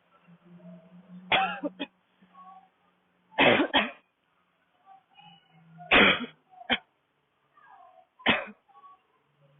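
A woman's dry, barking cough: four fits about two seconds apart, each of one or two sharp hacks.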